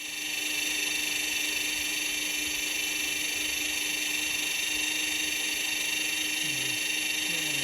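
Electric drill running steadily, spinning the engine's oil pump to prime the oiling system and push oil up to the new lifter and pushrod.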